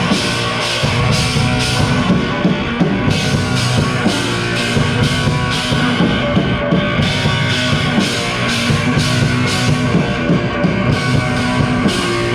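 Live rock band playing an instrumental passage between sung lines: a drum kit keeping a steady beat under guitar and bass.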